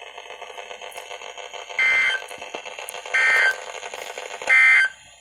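EAS end-of-message data tones heard through the speaker of a Realistic 12-141 weather radio tuned to NOAA Weather Radio: three short two-tone digital squawks about 1.3 seconds apart, with steady radio hiss between them. They mark the end of the severe thunderstorm warning broadcast.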